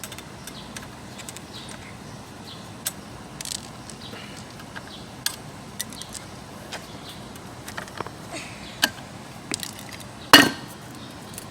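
Scattered light metallic clinks and taps as the steel clutch plates and rings of an automatic transmission's clutch pack are worked loose and handled, with one louder clank about ten seconds in.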